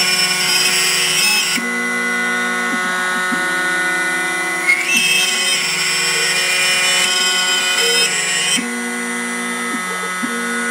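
Small CNC router's spindle whining as its end mill cuts machinable wax. Mixed with it are steady motor tones that jump to a new pitch every second or two as the cutting head changes direction.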